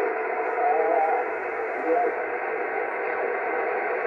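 11-metre (CB) radio receiver hiss with a faint, distant voice wavering in and out beneath it as band conditions fade.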